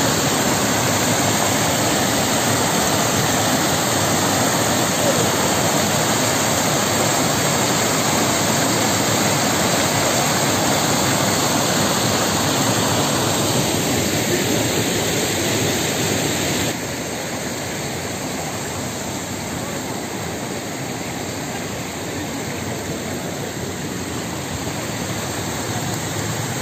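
Steady rush of fast-flowing floodwater from an overflowing spring and its swollen stream. About two-thirds through, the rush drops in level and loses much of its hiss.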